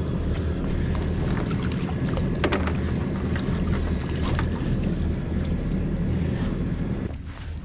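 Twin Mercury Verado V8 outboards idling with a steady low hum, under the clicks and splashes of a wet cast net being hauled and gathered aboard. The sound drops away sharply about seven seconds in.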